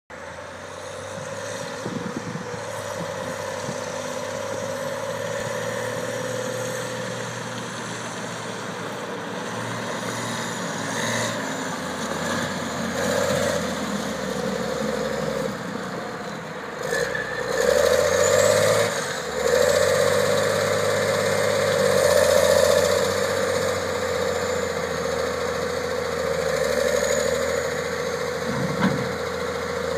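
Cat 970F wheel loader's diesel engine running as the machine drives, with a steady whine throughout. About halfway through the engine revs up and gets louder, and it stays working harder to the end.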